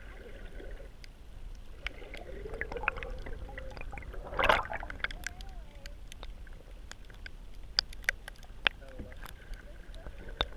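Water sounds heard through an underwater camera just below the surface: a low steady rumble with scattered sharp clicks and crackles, and a louder burst of water noise about four and a half seconds in.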